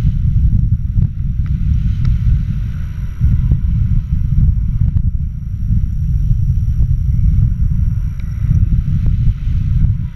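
Wind from a tandem paraglider's flight buffeting an action camera's microphone on a handheld pole: a loud, steady low rumble, with a few faint clicks.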